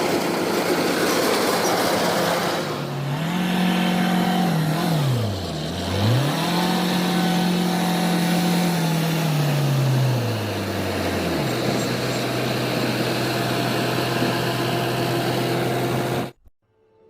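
Kubota DC-93 combine harvester's diesel engine running under load, with machinery noise. Its speed drops sharply and picks back up about five seconds in, then winds down to a lower steady speed around eleven seconds. The sound cuts off abruptly near the end.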